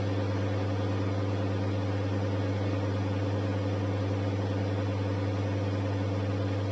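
Steady low electrical hum at one constant pitch, even and unbroken.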